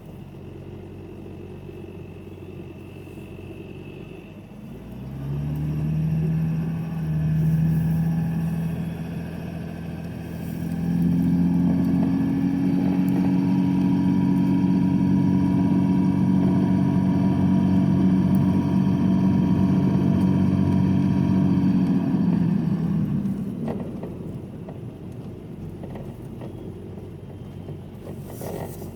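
A vehicle engine running low, then picking up speed about five seconds in. Its pitch climbs in two steps and holds at a steady higher note for about ten seconds before it eases off near the end.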